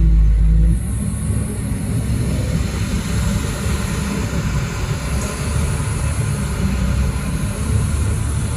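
Heavy diesel engine running steadily with a deep rumble and a thin high whine above it, and a heavy low thump in the first second.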